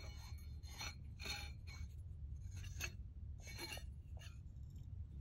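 Faint, scattered light scrapes and clicks of small metal strut parts being handled and fitted together by hand, about half a dozen short sounds spread over a few seconds.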